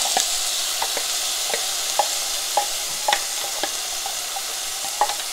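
Chopped onion sizzling in hot olive oil in a saucepan, a steady hiss. Over it come repeated light knocks and scrapes, about two a second, as the onion is knocked out of a plastic food-processor bowl into the pan.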